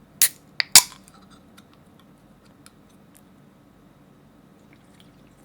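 Three sharp clicks of hard objects striking each other in the first second, the last the loudest, followed by faint scattered ticks.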